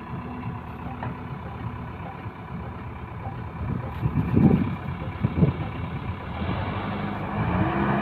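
Diesel engines of a JCB 3DX backhoe loader and a tractor running under load as the loader pushes the tractor's soil-laden trailer stuck in mud. Two dull low thumps come about halfway, and the engines grow louder near the end.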